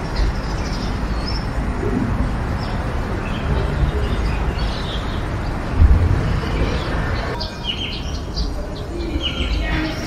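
Birds chirping over a steady low rumble of background noise. Faint chirps come early, and a run of quick, clearer chirps starts about three-quarters of the way in.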